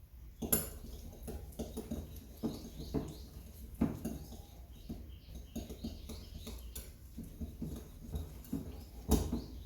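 Soft butter being mixed by hand in a mixing bowl: a utensil taps and scrapes irregularly against the bowl. There are louder knocks about half a second in, near four seconds, and just before the end.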